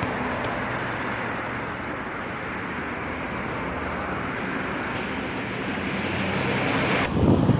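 Steady road-traffic noise from a busy multi-lane highway below, with the low hum of passing car and lorry engines. Near the end, a few low thumps of wind buffet the microphone.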